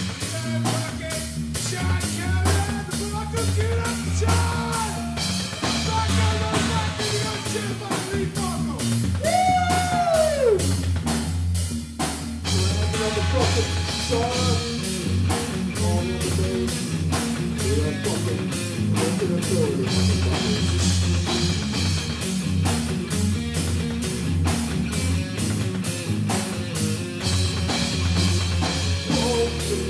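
Live rock band playing: drum kit with cymbals and an electric guitar through Marshall amps, with a singer's voice through the PA mostly in the first half.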